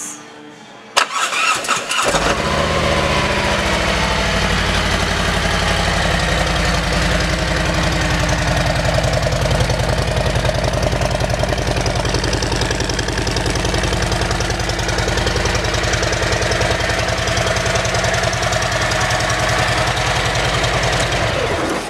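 2018 Harley-Davidson Road King's V-twin engine with Rinehart exhaust being started: a starter click about a second in, brief cranking, then the engine catches and runs at a steady idle until it is shut off just before the end.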